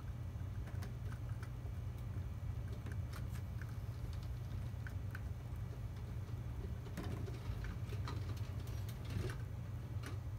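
Light clicks and taps of LEGO plastic parts being handled and set on an elevated track, thicker in the later part, over a steady low hum.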